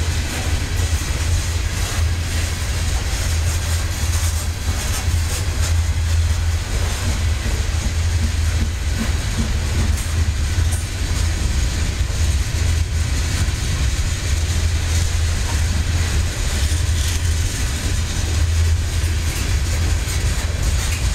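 Coal train's steel hopper cars rolling past at steady speed: a continuous deep rumble of wheels on rail, with scattered clacks over the rail joints.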